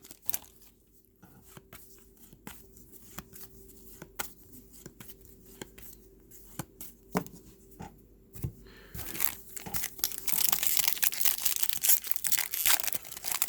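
Scattered light clicks and rustles of trading cards and packs being handled, then from about nine seconds in a dense crinkling and tearing of a trading-card pack's wrapper being ripped open.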